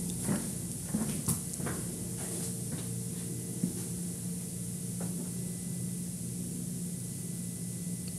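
Quiet indoor room tone: a steady low hum, with a few faint clicks and small knocks in the first few seconds.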